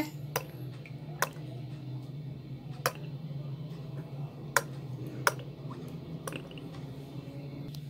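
Cooking oil poured in a thin stream into a nonstick pan: a soft liquid trickle with about seven sharp ticks scattered through it, over a steady low hum.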